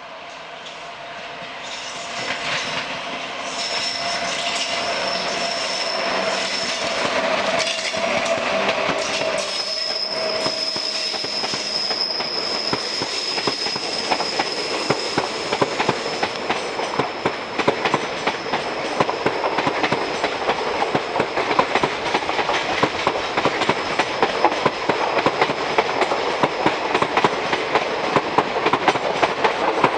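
Indian Railways WAP-7 electric locomotive hauling a passenger train past at speed. It grows louder over the first few seconds, with steady high whining tones. Then the coaches' wheels clatter rapidly and unevenly over the rail joints as they roll by.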